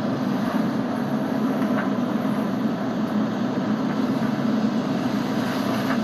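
Fishing boat's engine running with a steady drone, mixed with the rush of wind and sea.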